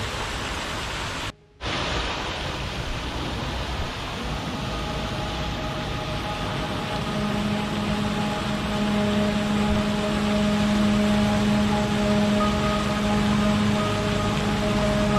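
Steady rain-like hiss that cuts out for a moment about a second and a half in, then resumes. Soft sustained ambient music tones fade in under it, with a low held note joining about seven seconds in.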